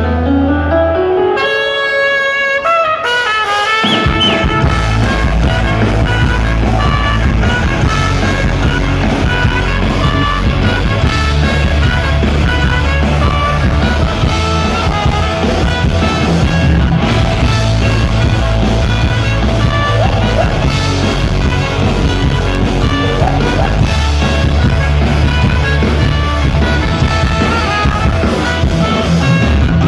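Rock band playing live with a brass-led melody over drums and bass guitar, no vocals. It opens with a rising glide and a brief break, and the full band comes back in about four seconds in.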